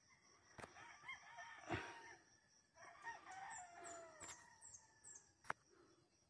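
A rooster crowing faintly, twice, each crow lasting well over a second, with a few sharp clicks between.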